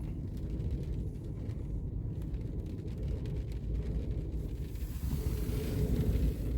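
Gale-force wind buffeting the microphone: a steady low rumble, swelling with a stronger gust about five seconds in.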